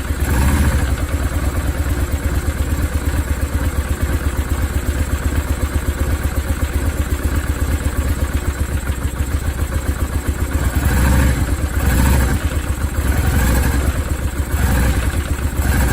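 Honda Steed 400 liquid-cooled V-twin with its stock muffler, running at a steady fast pulse with a rattling ("karakara") noise. The engine runs louder for a moment several times in the second half. The rattle comes from the swapped-in engine and became audible once the quieter stock muffler was fitted; its cause is unknown.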